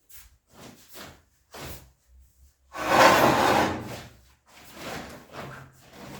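Kitchen fittings being handled: several light knocks and rubs, and about three seconds in a louder sliding rub lasting about a second and a half, like a drawer running on its slides.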